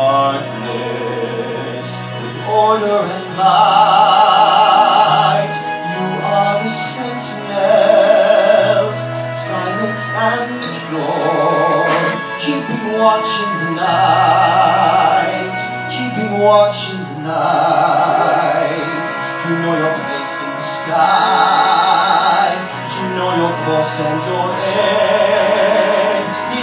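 A man sings a slow musical-theatre ballad over instrumental accompaniment, in long phrases with held notes and wide vibrato.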